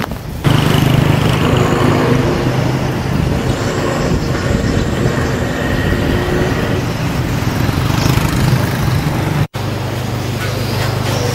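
Street traffic noise: a steady hum of passing motor vehicles, broken by a brief dropout about nine and a half seconds in.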